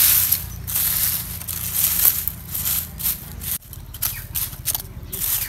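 Dry leaves, twigs and soil scraping, rustling and crunching in irregular bursts as the ground is dug and scratched with a small hand tool.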